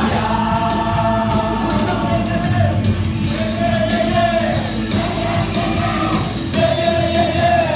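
Live church worship music: a band playing while several singers on microphones sing together, in phrases of long held notes.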